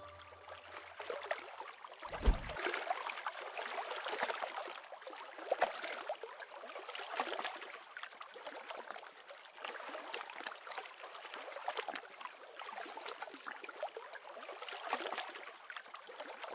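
Small waves lapping and gurgling in an uneven, continuous slosh. A deep low thump about two seconds in, as the last low note of music dies away.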